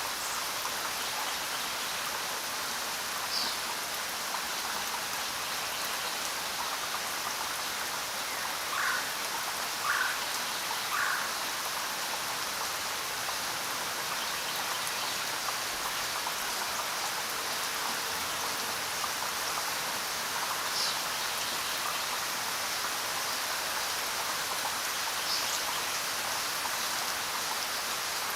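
Steady rain falling, an even hiss of drops. A few brief sounds stand out from it, three in quick succession about nine to eleven seconds in.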